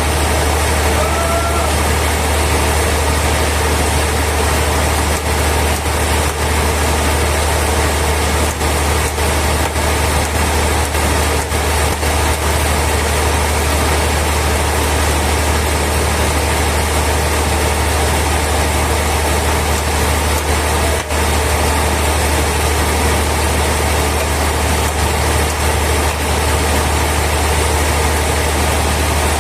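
Sawmill machinery running with a steady, unchanging mechanical drone and a strong low hum.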